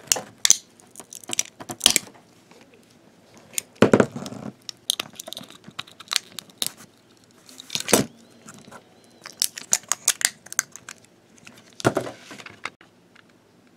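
A thin metal pick scraping and prying at a small speaker seated in a black plastic toy-train chassis, with irregular clicks and scrapes and a few sharper plastic knocks.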